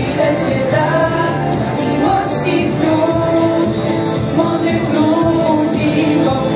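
A woman singing a pop song into a microphone over a backing track played through PA speakers, holding long notes.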